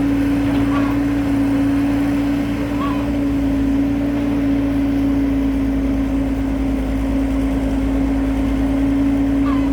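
Excavator's diesel engine running steadily under work, with a constant hum and drone. A few brief faint chirps sound over it.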